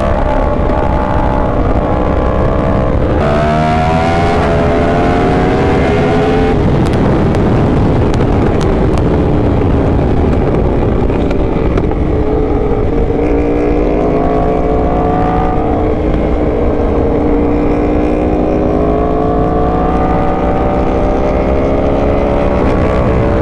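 Yamaha R1 sportbike's inline-four engine under way, its pitch rising and falling with the throttle through the bends, with abrupt changes about three seconds in and again a few seconds later as it shifts gear.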